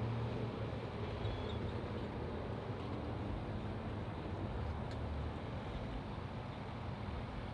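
Engines running steadily with a low hum.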